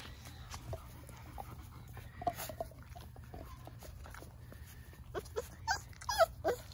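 Labrador retriever puppies at play, giving a run of short, high whines and yips in the last second and a half, over a faint steady low hum.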